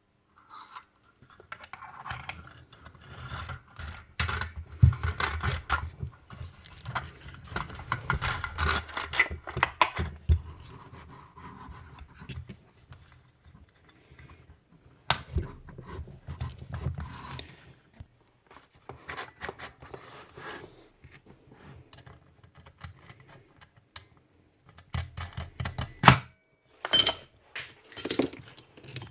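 Irregular scraping, clicking and rattling of hand tools and small metal parts being handled while the router is worked on, with a couple of sharp knocks.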